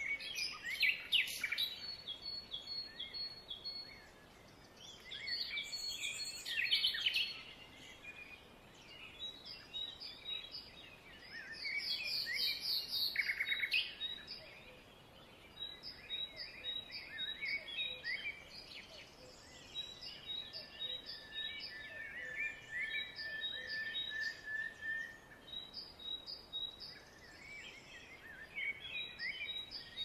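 Several songbirds singing and calling over soft outdoor background noise. A steady row of short high chirps repeats throughout. Louder song phrases break in a few times, and one long held whistle comes about two-thirds of the way through.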